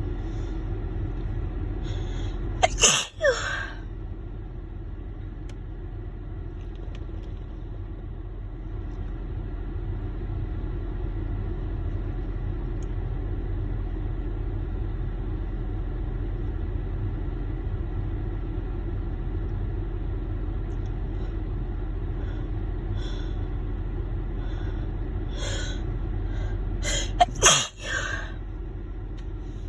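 A woman sneezing hard twice, once about three seconds in and again near the end, each sneeze preceded by short catching breaths as she builds up to it after holding in an intense tickle. A steady low rumble runs underneath.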